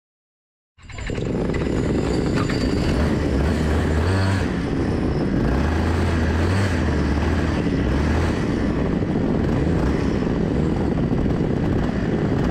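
After a moment of dead silence, two-stroke racing kart engine noise cuts in and runs on steadily and loud, with a low hum that rises and falls in strength.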